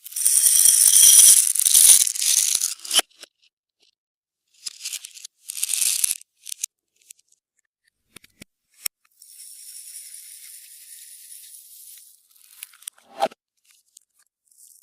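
Small dry particles rattling and hissing in a shaken container, in several bursts: a long loud one at the start, two shorter ones a few seconds later, then a quieter steady hiss for about three seconds, with a sharp tap near the end.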